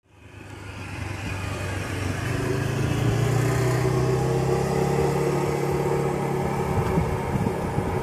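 Airbus A320 jet engines running as the airliner moves along the runway: a steady low drone with a higher whine, fading in over the first couple of seconds and then holding steady.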